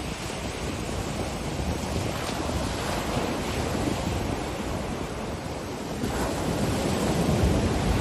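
Ocean surf breaking and washing on a beach, with wind buffeting the microphone. The wash swells louder in the last couple of seconds.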